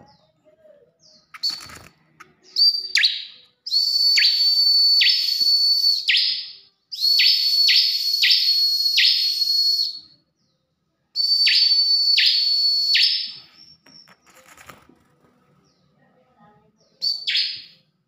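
Bar-winged prinia (ciblek) singing: a held high whistle broken by quick falling notes, about two or three a second, in three long phrases with short pauses, then a brief phrase near the end.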